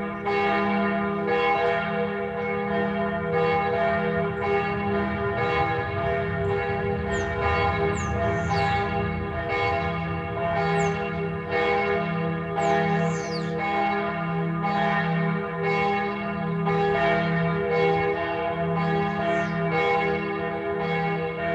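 Church bells ringing in a full peal, several bells swung together so that their strokes overlap steadily.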